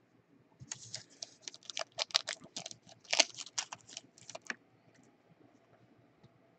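Foil wrapper of a 2017 Panini Unparalleled Football trading-card pack being torn open and crinkled: a dense run of sharp crackles lasting about four seconds.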